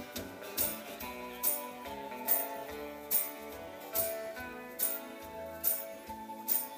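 Live band playing an instrumental passage between sung lines: acoustic and electric guitars over a sharp percussion hit about once a second.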